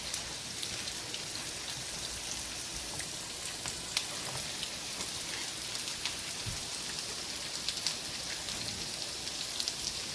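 Onions sizzling in hot oil in a frying pan: a steady hiss with scattered crackles and pops, one sharper pop about four seconds in.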